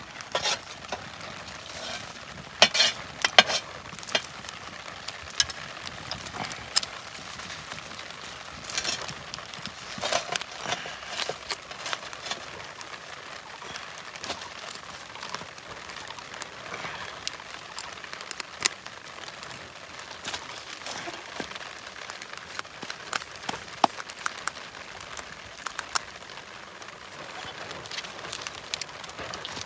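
Knife cutting and scraping at a singed goat head: irregular crackling scratches and clicks as the blade works over charred skin and the jawbone.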